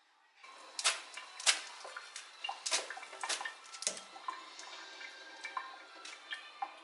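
Water running and splashing into a stainless steel sink as cooked soba noodles are drained and rinsed in a metal mesh colander, with several sharp metallic clinks of the colander and pot against the sink, the loudest in the first couple of seconds.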